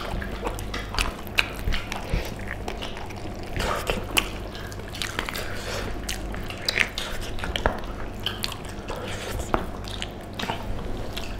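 Wet mukbang eating noises: lip smacks, chewing and biting as pork leg curry is gnawed off the bone, with rice and curry squished by hand, heard as an irregular scatter of short wet clicks.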